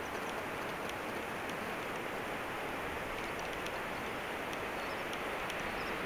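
A steady, even hiss with a few faint high ticks.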